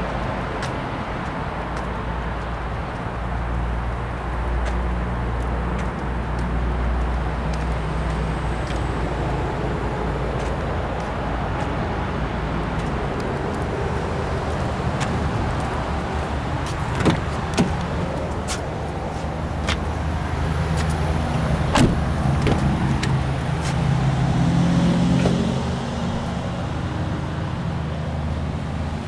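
Vehicle engine running steadily at idle, with a few sharp clicks a little past halfway through.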